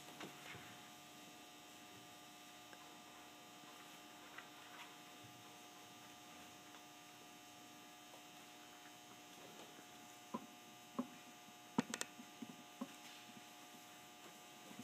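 Steady electrical mains hum, several faint even tones. A few sharp knocks break through late on, the loudest about twelve seconds in.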